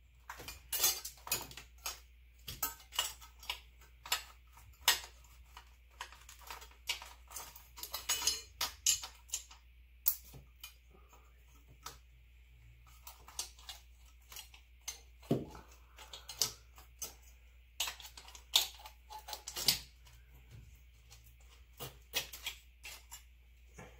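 Irregular clicks, clinks and light knocks of hoses, clips and fittings being worked loose by hand around an engine's intake manifold.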